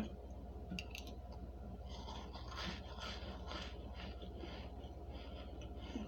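Someone biting and chewing a crunchy chunk of microwave-baked starch: faint, irregular crisp crunches, over a steady low hum.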